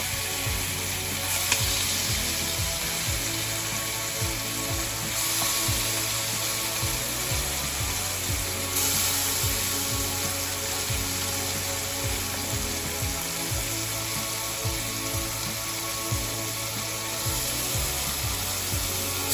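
Chicken pieces sizzling in hot oil and curry in a cooking pot: a steady frying hiss that swells and eases in stretches.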